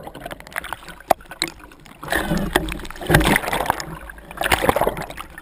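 Sea water sloshing and splashing around the camera at the surface, with sharp clicks and knocks and louder rushes of water about two seconds in and again near the end.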